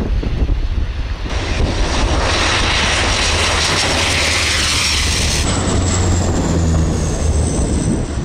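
Twin turboprop engines of a Canadair CL-415 water bomber running at high power, with a steady low propeller drone. A loud rushing hiss fills the middle as the plane skims the water, and near the end a high engine whine falls slowly in pitch as the plane passes.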